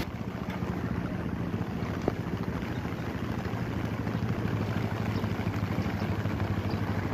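Steady low hum of road traffic engines with a single sharp click about two seconds in.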